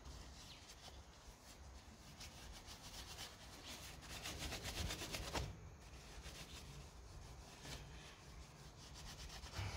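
Hand rubbing at the cut edge of a freshly drilled hole in a black plastic soil pipe, cleaning it off ready for solvent welding. Faint, quick scratchy strokes in runs, with a short break about halfway.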